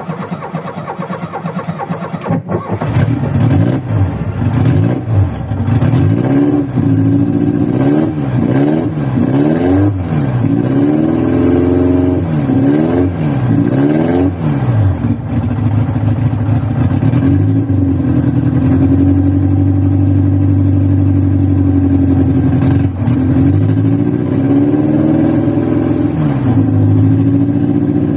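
Carbureted VW Voyage engine being warmed up after a cold start, running rough. After a quieter, uneven first couple of seconds it is revved up and down repeatedly by pumping the gas pedal, then held at a raised, uneven idle, with one more rev near the end.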